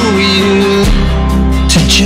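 Music: the closing bars of a pop song, a held note over a steady bass line that shifts about a second in.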